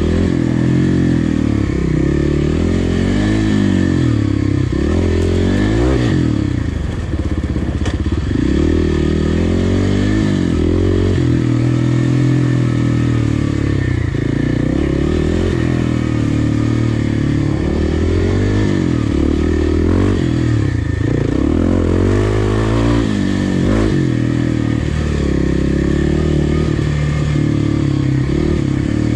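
Kawasaki KLX dual-sport bike's single-cylinder four-stroke engine under way, its revs rising and falling again and again as the throttle is worked, with a few knocks and clatters along the way.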